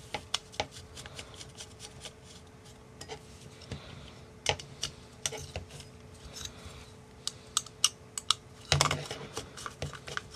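Rotor Riot CL1 carbon-fibre frame plates and arm clicking and tapping against each other as the arm is taken out, flipped and pressed back into place, with small screw and hex-driver clicks. The taps come irregularly, with a busier cluster of knocks near the end, over a faint steady hum.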